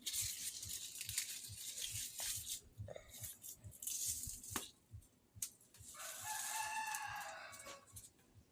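A rooster crowing once, a call of nearly two seconds, about six seconds in. Before it come rustling and a few sharp clicks.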